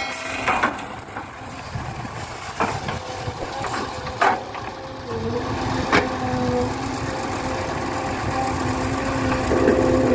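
Excavator loading a dump truck: an engine hum runs throughout and grows stronger from about five seconds in. Several sharp knocks come in the first six seconds, typical of the bucket and earth striking.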